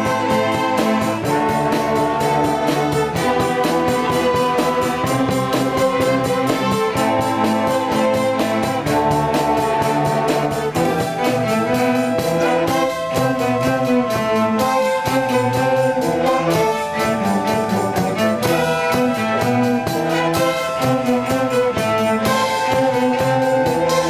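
Youth orchestra playing a piece: strings with horn and woodwinds, held melody notes over a steady beat.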